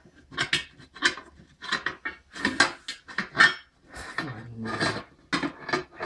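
Steel tire irons and a flat bar clanking and scraping against a steel wheel rim as a tire bead is pried off by hand: an irregular run of metal knocks and scrapes, the loudest about three and a half seconds in.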